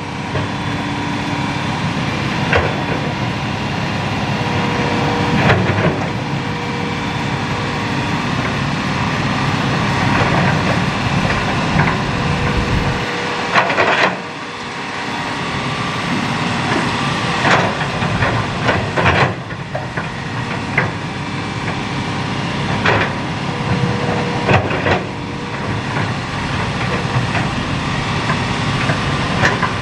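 Hitachi hydraulic excavator's diesel engine running steadily under work, with sharp knocks and clanks every few seconds as it digs and dumps sand and gravel fill.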